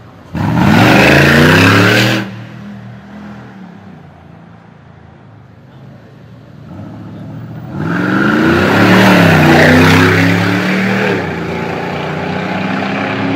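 Mercedes-AMG G-Class SUV engine revving hard: a sudden burst of rising engine pitch about half a second in, lasting under two seconds before dropping back. About eight seconds in comes a second, longer acceleration, which eases to a steadier engine note near the end.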